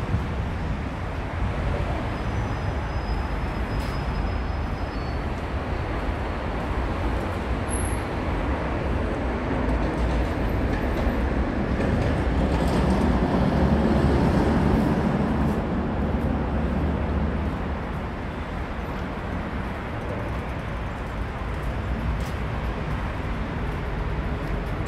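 Steady rumble of road traffic crossing the UFO Bridge deck overhead, heard from the walkway beneath it. It swells louder around the middle as heavier traffic passes, then eases.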